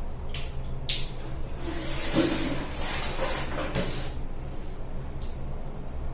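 Tap water running in a bathroom with a steady low hum under it, a couple of sharp clicks in the first second, and a louder rushing stretch around the middle.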